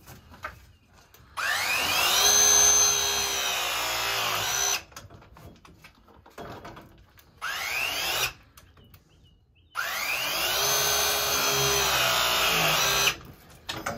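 Battery-powered pipe press tool crimping press fittings: its motor whines up in pitch and then runs steadily for about three seconds per press. It presses twice, with a shorter one-second run in between.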